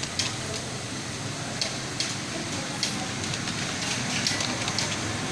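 Computer keyboard keys being typed on, a scattered run of irregular short clicks over steady background noise.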